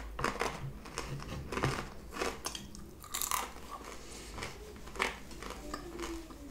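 A mouthful of French fries being chewed close to the microphone: irregular crisp crunches and wet mouth sounds, the crunches coming thickest in the first few seconds, then fewer.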